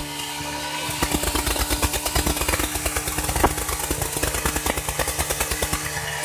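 Sport motorcycle engine held at high revs while the rear tyre spins and smokes against the pavement in a burnout. About a second in, the steady engine sound turns rough and stutters rapidly and unevenly.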